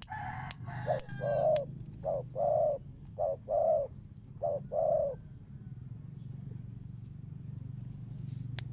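Spotted dove (tekukur) cooing: four phrases, each a short note followed by a longer one, about one a second, then it stops after about five seconds. A few sharp clicks near the start.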